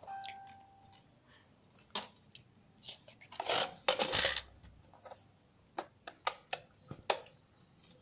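Scattered hard plastic clicks, taps and knocks from a toy remote-control monster truck and its parts being handled, with a louder rustling clatter about three and a half seconds in. A short beep sounds at the very start.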